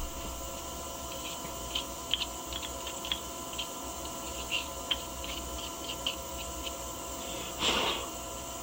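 Light clicks, taps and small scrapes of someone cleaning chainsaw parts by hand, over a steady electrical hum, with a short rubbing hiss a little after seven seconds in.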